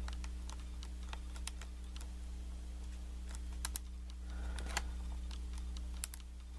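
Sparse light metallic clicks and ticks of a lock pick and tension wrench working the pins of a Kwikset knob cylinder, over a steady low hum.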